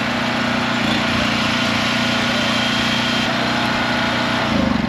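Small portable gasoline engine running fast and steady to spin a blender making mango fruit water. It surges in pitch near the end as the throttle is let off.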